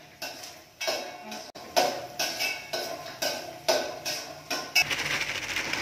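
Steel spatula stirring peanuts roasting in a steel pan, giving ringing metal clinks about twice a second. Near the end a steady rustling hiss comes in.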